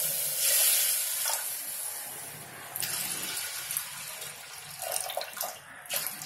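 Water poured from a steel mug into an aluminium pressure cooker, splashing into the pot. The pour is loudest in the first second or so, with steam rising off the hot pot, then carries on more quietly.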